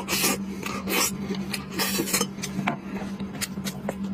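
Close-miked eating sounds: irregular sharp clicks and rasping scrapes of food being chewed and pulled apart, several a second, over a steady low hum.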